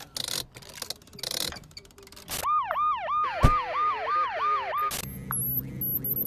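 A police siren sound effect, a quickly repeating up-and-down wail about three times a second, with a sharp thud partway through. It is preceded by a few short noisy clatters and followed by a steady low hum with short high electronic chirps.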